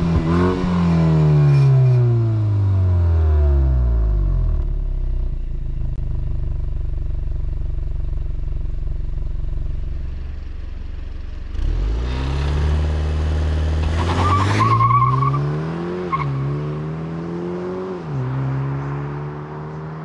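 BMW 230i's 2.0-litre turbo four-cylinder engine and exhaust: the revs drop back from a blip to a steady idle, then, a little past halfway, the car accelerates hard away with the engine pitch climbing and dropping at two upshifts of the eight-speed automatic.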